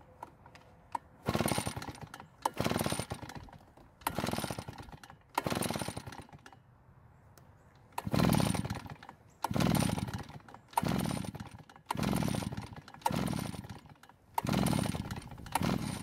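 About eleven pulls on the recoil starter of a Redmax EBZ8500 backpack blower's two-stroke engine with the choke on. Each is a second-long whir of the rope and the engine cranking without catching, with a pause after the fifth. It never fires because the engine is flooded.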